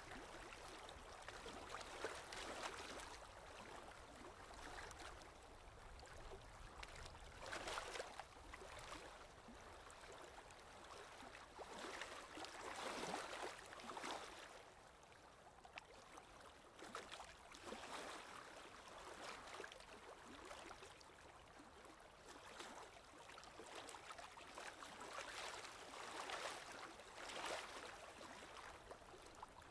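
Faint scratching of drawing strokes on paper, swelling and fading irregularly every second or two.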